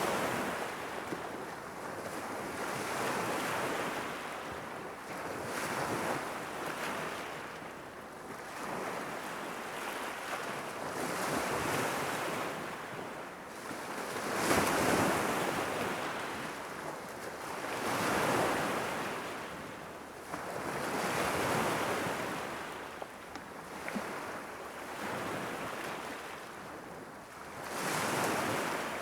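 Sea waves washing ashore, a rushing hiss that swells and fades every three seconds or so, with the biggest wave about halfway through. Some wind noise on the microphone.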